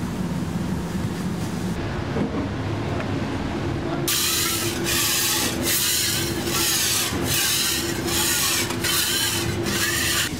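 A steady background hum, then from about four seconds in a scraper rubbed back and forth across a steel flat-top griddle in about eight quick hissing strokes, a little over one a second, over a steady hum.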